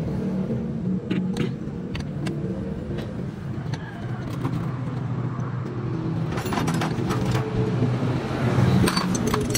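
Steady hum of motor vehicles running nearby, with scattered sharp clicks and taps of hand tools on the motorcycle engine parts being assembled. The clicks come in a cluster in the first few seconds and again in the last three.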